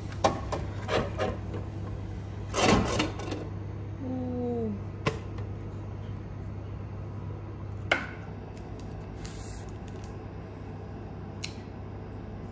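Handling sounds as a bowl of noodles is lifted out of a vending machine's delivery slot and set on a table: scattered clicks and knocks and one rustling burst. A steady low hum runs underneath, and a short falling tone comes about four seconds in.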